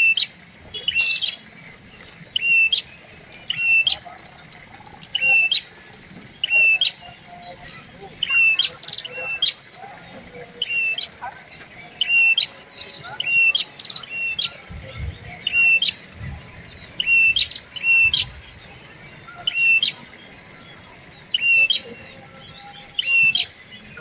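Prenjak lumut, a tailorbird, calling over and over: a loud, sharp, high note about once a second, each one ending in a quick upward flick.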